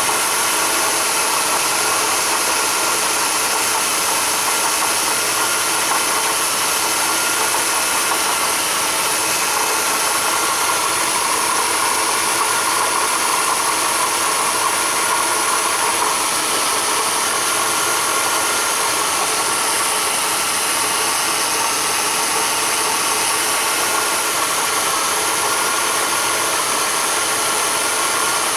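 Engine idling with its water pump's worn bearing giving a steady high whine over the running noise: the failing bearing is the sign that the pump needs replacing.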